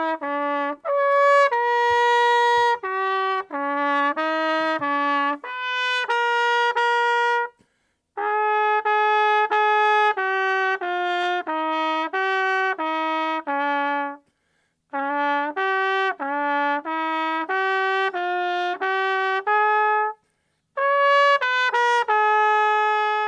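A solo trumpet playing a slow melody note by note, in phrases separated by short breaths.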